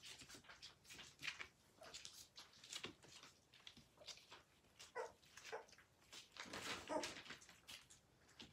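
German shepherd puppies eating soft wet food: faint, rapid wet smacking and lapping, with a few short, high whimpers about five and seven seconds in.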